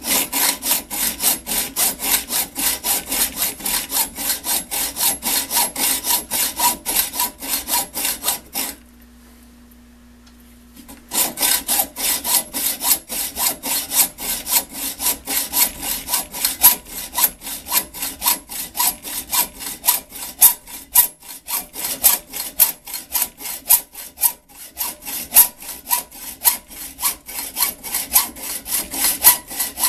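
Hand hacksaw cutting through a soft grade 2 steel 3/8-inch hex coupling nut held in a lathe chuck, in rapid, even back-and-forth strokes at about three a second. The sawing stops for about two seconds roughly a third of the way in, then starts again.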